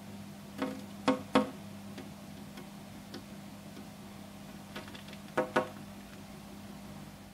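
Long-tailed tit tapping its beak against the window glass: a few sharp taps, three about a second in and three more around five seconds in, over a steady low hum.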